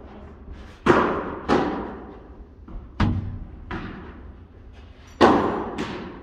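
Padel rally: a padel ball struck with solid padel rackets and bouncing on the court, a series of about six sharp pops, each echoing in the large hall. The loudest come about a second in and near the end.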